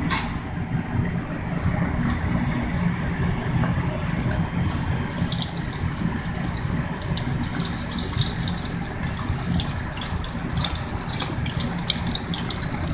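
Battered chicken wings deep-frying in hot oil at 350 degrees in a deep-fryer basket: a steady sizzle, with popping crackle that becomes denser about five seconds in. A steady low hum runs underneath.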